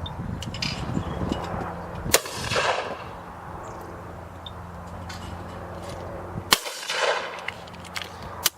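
Two shotgun shots from a Benelli 828U over-under, about four and a half seconds apart, each followed by a rolling echo. A sharp click comes just before the end, over a steady low hum.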